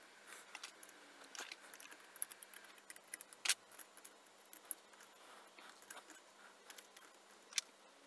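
Scattered light clicks and taps of printed circuit boards and small metal parts being handled as cell-connector boards are lifted off and fitted onto the threaded terminal studs of a battery pack. A few sharper clicks stand out, the loudest about three and a half seconds in and another near the end.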